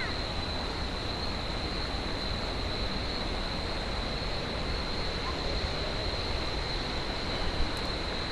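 Steady rushing outdoor noise with a constant high-pitched insect drone over it, unbroken throughout.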